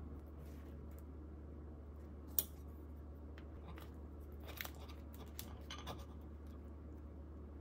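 A table knife cutting into a crisp baked tortilla shell, giving a few crackling crunches. There is a single sharp click about two seconds in, louder than the cutting.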